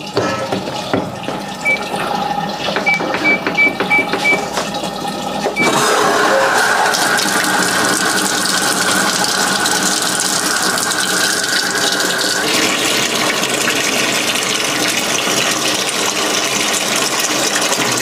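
A Panasonic top-loading washing machine gives several short electronic beeps, then about six seconds in water starts gushing steadily from its inlet into the drum as the machine begins to fill.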